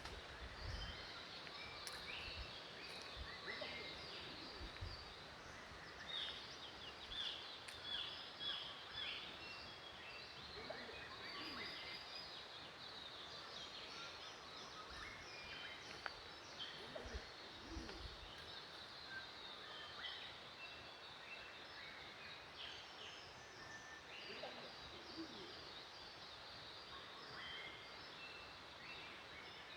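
Several birds chirping and singing over a steady outdoor hiss, faint, in short calls and quick repeated runs of falling notes. A few low rumbles near the start and about halfway through.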